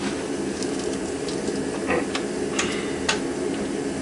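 Harbor Freight mini lathe running with its power feed engaged: a steady hum from the motor and the freshly lubricated change gears driving the carriage, with a few scattered light ticks. The gear whine is still there but calmed down by the lubrication.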